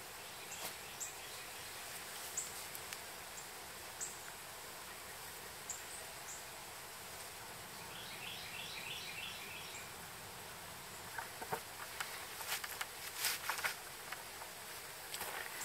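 Quiet woodland ambience with scattered short, high bird chirps and a brief run of repeated bird notes about eight seconds in. From about eleven seconds in come rustles and light knocks of wooden poles being handled.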